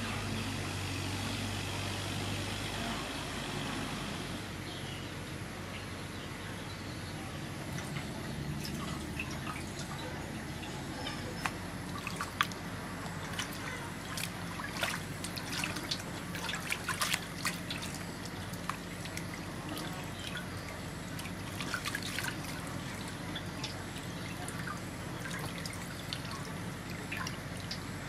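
Water sloshing and dripping in a metal basin as hands scrub and lift a slab of raw pork skin, with a run of small splashes and drips through the middle.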